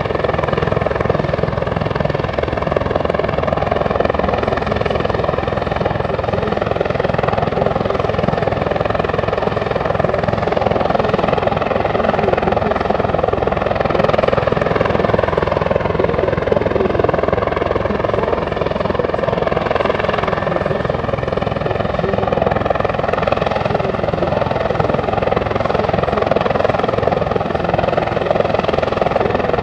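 CH-146 Griffon military helicopter flying a display, its rotor and turbine running steadily. The engine pitch drifts gently up and down as it moves.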